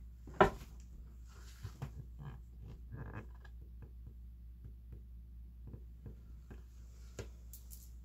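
A sharp knock about half a second in, then scattered soft taps and clicks over a low steady hum.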